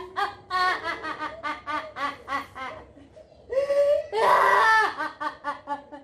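A puppeteer's voice giving an exaggerated cartoonish laugh for a puppet character: a quick run of cackling "ha-ha" syllables, a loud shrieking peak about three and a half seconds in, then more rapid cackles.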